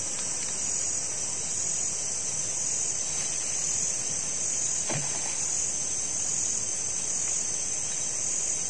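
Steady, high-pitched chorus of insects, with a slight pulse about once a second. A faint short knock sounds about five seconds in.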